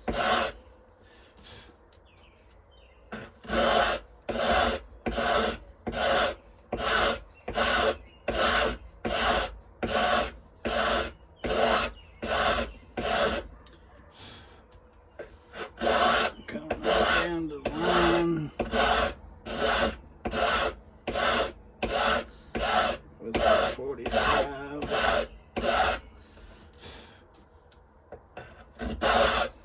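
Hand file rasping across the end of a knife handle scale in steady, even strokes, about one and a half a second, cutting a 45-degree bevel. The filing stops briefly near the start, midway and near the end.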